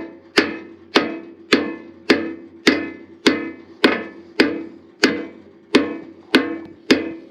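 Hammer blows on steel in a steady rhythm, a little under two a second, each with a short metallic ring, driving a part into place on a bulldozer so a hole lines up.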